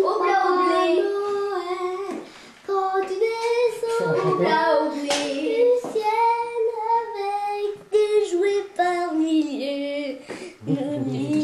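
A child singing a tune in a high voice, holding notes that step up and down, with a short break about two seconds in.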